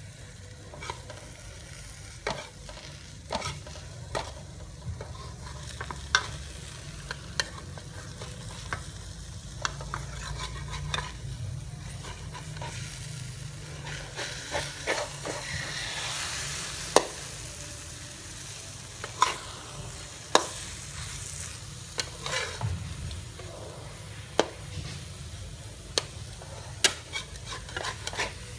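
Egg, tomato and spring onion frying in a metal wok with a steady sizzle that swells for a few seconds midway. A metal spatula knocks and scrapes against the pan in sharp clicks, busier near the end as the omelette is broken up and stirred.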